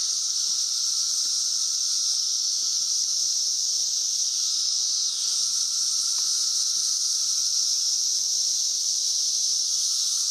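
Massed chorus of 17-year periodical cicadas during an emergence swarm: a steady, unbroken high-pitched drone.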